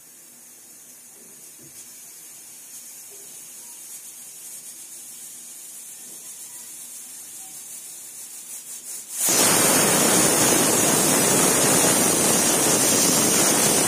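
Stovetop pressure cooker building pressure with a faint hiss that grows slowly. About nine seconds in, the weight valve lifts and the cooker lets off its whistle: a loud, steady rush of escaping steam. This is the third of the three to four whistles the soaked chickpeas are given.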